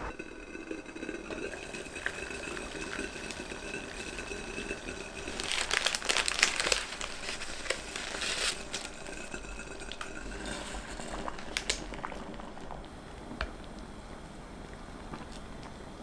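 Kitchen sounds of noodles cooking in a glass pot on the stove: a faint steady whine and hum, with a few seconds of loud crackling and crinkling about halfway through and a few light clicks after.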